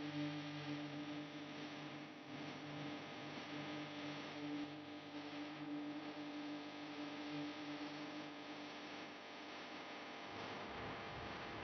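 Faint steady electrical hum over a low hiss, the kind of hum given off by bench equipment. The hum fades about nine seconds in, and a low rumble comes in near the end.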